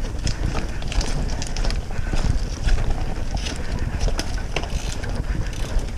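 Wind rumbling on a bike-mounted camera's microphone while a road bike on Panaracer GravelKing tyres rolls up a loose dirt forest track, with scattered sharp clicks and crunches from the tyres and bike.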